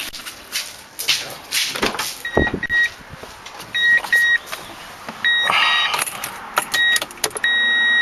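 2004 Toyota Tundra's cab warning chime beeping in short, high-pitched beeps from about two seconds in, ending in one longer tone, over rustling and clicks as the cab is entered.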